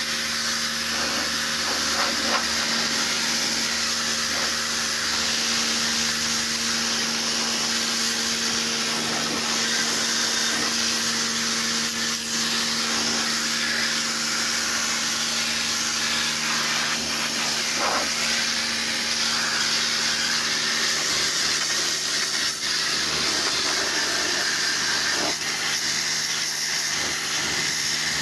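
Pressure washer running: the steady hum of its motor and pump under the loud hiss of the high-pressure water jet spraying onto the car. Most of the hum drops out about three-quarters of the way through while the spray hiss carries on.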